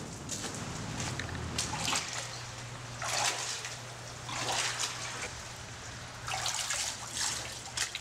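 Footsteps splashing through shallow water on a storm-drain floor, a slosh every second or so, over a steady low hum.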